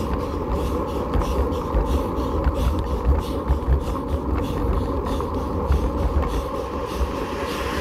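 A bicycle riding over rough, patched asphalt, heard through a bike-mounted camera: a steady low rumble and buffeting on the microphone, with scattered light rattles and ticks.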